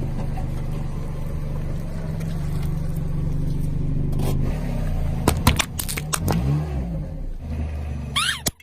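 Car engine running steadily, its pitch wavering as the car creeps forward. About five seconds in there is a quick series of sharp cracks and pops as objects are crushed under the tyres, and near the end a brief squeak before the sound cuts off suddenly.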